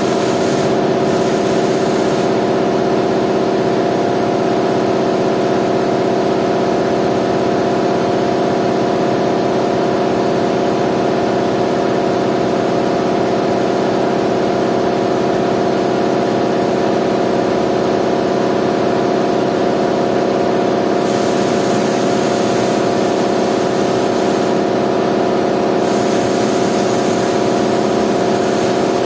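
Steady machine drone at a constant pitch, unchanging throughout.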